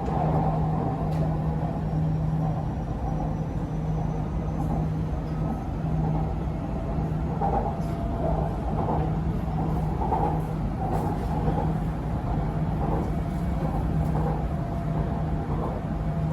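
Electric train running between stations, heard from inside the passenger car: a steady rumble of wheels on the rails with a constant low hum and a few faint clicks.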